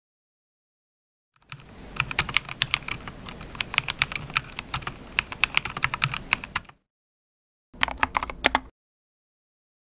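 Typing on a HyperX Alloy FPS Pro mechanical keyboard with Cherry MX Red switches: a quick run of keystrokes starting about a second and a half in and lasting about five seconds, then a short burst of a few keys about two seconds later.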